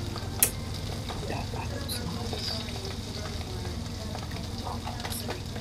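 Sea bass fillets sizzling steadily as they fry skin-down in butter in a non-stick pan, with a sharp click about half a second in.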